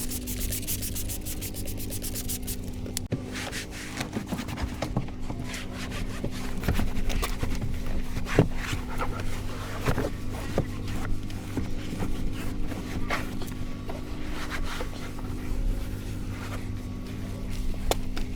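Background music with irregular rubbing and scraping strokes running through it.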